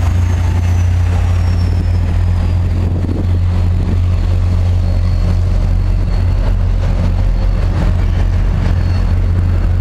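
MBTA F40PH-type diesel-electric locomotive idling close by: a loud, steady low engine hum, with a faint high whine that slides down in pitch over the first few seconds and then holds steady.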